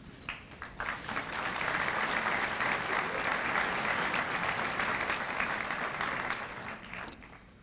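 Audience applauding: a few scattered claps at first, swelling into steady applause that fades out near the end.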